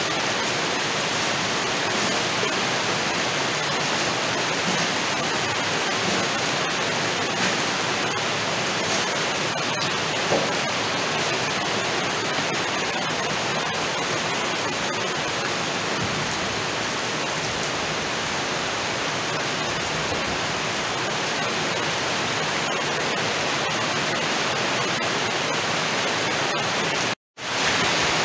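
Heavy rain falling steadily, an even dense hiss, with water pouring off a roof edge close by. The sound cuts out for a moment about a second before the end.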